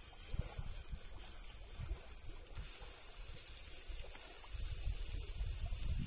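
Faint hiss of oil sizzling on a hot charcoal-grill grate as it is brushed on, a steady high hiss that sets in abruptly about two and a half seconds in, over an uneven low rumble.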